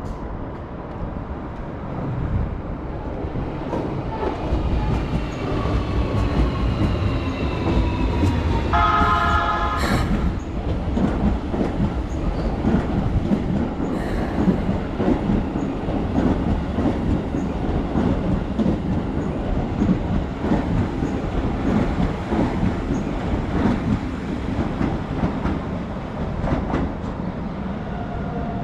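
A Keikyu electric train runs past the level crossing. A whine falls in pitch as it comes in, a short horn blast sounds about nine seconds in, and then the wheels clatter over the rail joints as the cars pass.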